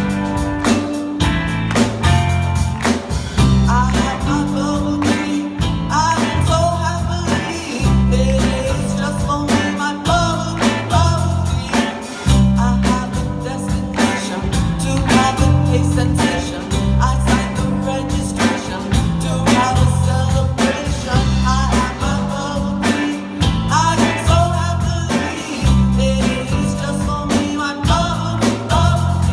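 Live rock band playing a steady groove on drum kit, bass and electric guitar, with piano and some singing over it.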